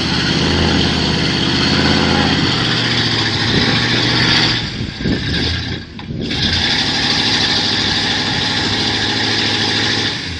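Off-road truck engine running hard at steady high revs, easing off briefly about five seconds in, then back up before dropping away near the end.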